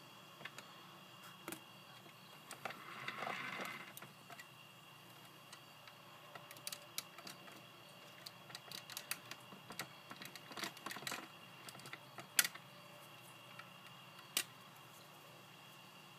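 Light clicks and snaps of the clip-on body panels of a 1/18 scale Smart Fortwo model being unclipped and handled, with a short rubbing sound about three seconds in and the sharpest snap about twelve seconds in.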